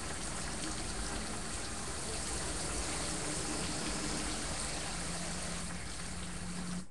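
Steady, dense rushing noise from a film soundtrack playing through the hi-fi speakers, with faint low hums beneath it, dropping off abruptly at the end.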